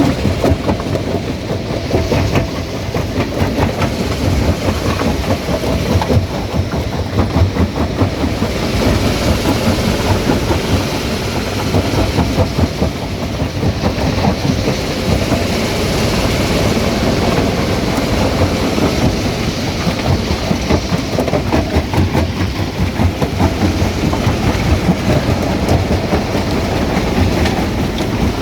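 Stone crusher running steadily, with a dense, continuous clatter of rock being crushed and rattling through the machine.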